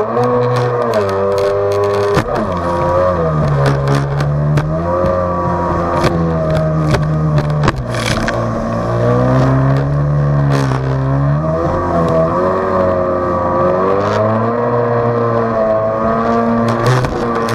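Jet ski engine running under way, its pitch rising and falling several times as the throttle is opened and eased off, with scattered knocks of water and spray slapping the hull.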